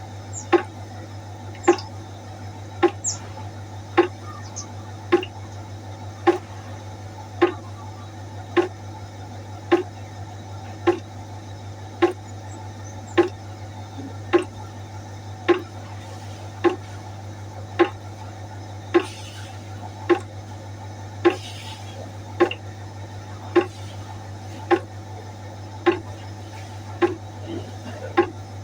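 Water droplets falling into a pot, one plop a little more than once a second at a very even pace, each with a short ring.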